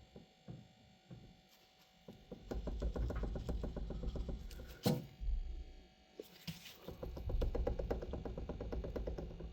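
Rapid clicking in two runs of about three seconds each, with a single sharp knock between them, from hands-on work at an Austin 7's loose rear wheel, whose loose wheel nuts and missing stud are the cause of its knocking.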